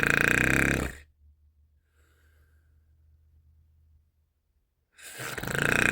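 A person snoring loudly: a long snore ends about a second in, a faint breath follows, and another loud snore starts near the end.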